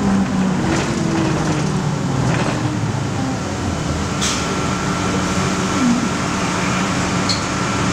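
Inside a 1997 Nova Bus LFS city bus under way: a steady drone of engine and road noise, with a faint steady high whine and a couple of short clicks or rattles, one about four seconds in and one near the end.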